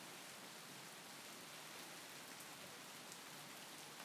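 Faint, steady rain ambience: an even hiss of rainfall with a few scattered drop ticks.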